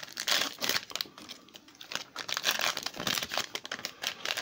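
Foil Pokémon booster-pack wrapper crinkling in irregular bursts as it is torn open and pulled apart by hand.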